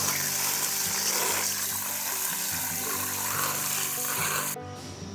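Water spraying hard from a garden hose nozzle into a stainless steel bowl of chitterlings being washed, a steady rush that cuts off abruptly near the end. Background music plays underneath.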